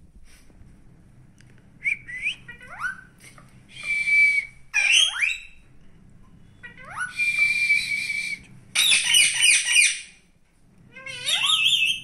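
Rose-ringed parakeets calling: sliding whistles that fall and rise, mixed with longer harsh screeches and a quick run of rapid calls about nine seconds in.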